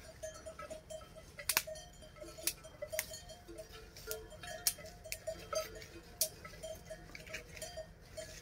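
Scattered sharp clicks and snaps as a fire is lit in the firebox at the base of a metal samovar. Behind them runs a faint, rapid tinkle of cowbells on grazing livestock.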